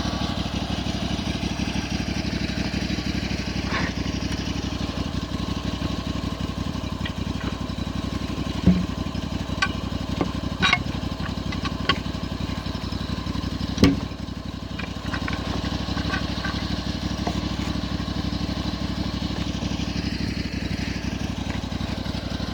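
Engine of a homemade sawmill running steadily, with a few sharp knocks about nine, eleven and fourteen seconds in.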